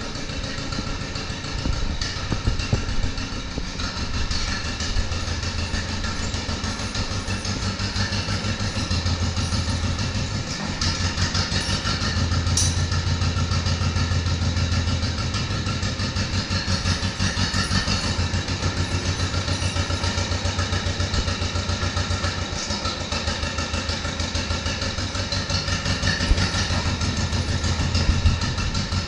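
A 1955 John Deere 40S tractor's two-cylinder engine running as the tractor is driven along, with a steady, even string of firing pulses.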